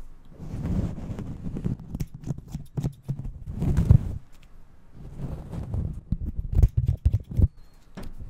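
Haircut sounds made close on a fluffy microphone cover: irregular swells of low rustling and rubbing, each about a second long, broken by quick sharp clicks and snips of a grooming tool working through the fur.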